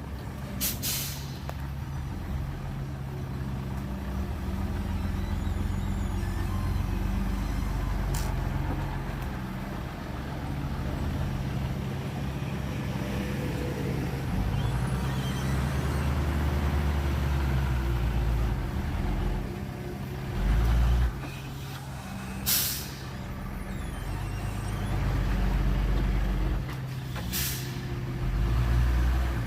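Heavy diesel truck engine running steadily, with short sharp air-brake hisses four times: near the start, about 8 seconds in, and twice near the end. A loud low thud comes about 20 seconds in.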